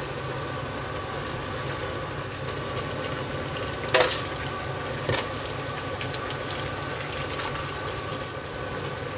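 Pork and vegetable stew sizzling steadily in a cast-iron Dutch oven. A short knock about four seconds in and a smaller one about a second later.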